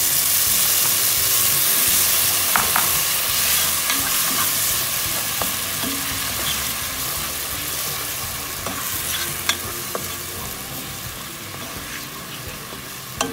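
Blended cilantro sizzling in hot oil with sautéed onion and garlic in a non-stick pot as it is stirred with a spatula. The sizzle is loudest at the start, when the liquid has just hit the oil, and dies down gradually, with a few taps of the spatula against the pan.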